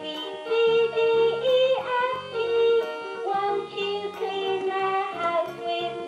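VTech Baby Counting Colours Vacuum Cleaner toy playing a children's song through its small speaker: an electronic melody of held notes with a synthetic sung voice.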